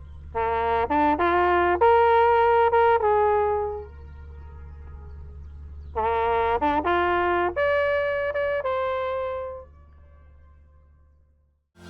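Background music: a single melody instrument plays two short phrases of held notes, each about three seconds long and a couple of seconds apart, over a low steady drone. The music fades out near the end.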